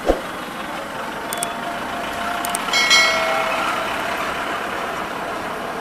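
Steady street traffic noise with running vehicle engines. There is a knock at the very start, and a short, sharp pitched tone sounds about three seconds in.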